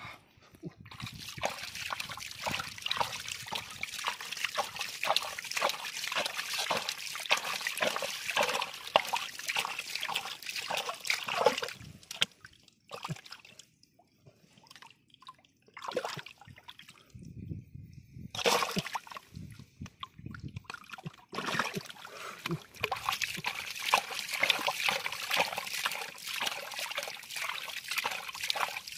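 Water splashing and sloshing in quick, dense bursts, with a pause of several seconds about midway before the splashing starts again.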